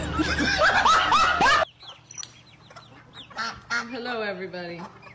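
A dog howls in rising and falling, talk-like yowls for about a second and a half. The sound then cuts sharply to quieter farmyard animal calls, among them chickens and ducks.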